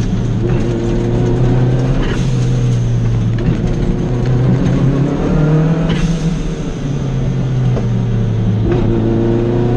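Lancia Delta Integrale's turbocharged four-cylinder engine heard from inside the cabin, driven hard on a rally stage, its note rising and dropping several times. Short sharp bursts come about two and six seconds in.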